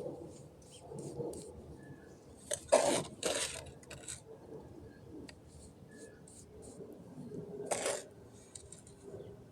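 A hand tool scraping and working wet concrete mix, in a few short strokes with light clinks between. The loudest strokes come about three seconds in and again near the end.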